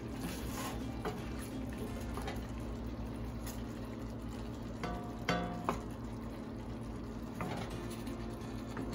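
A spatula turning marinated chicken leg pieces in a steel pressure-cooker pan, scraping against the pan a few times, loudest about five seconds in, over the steady soft sizzle of the chicken cooking in its marinade.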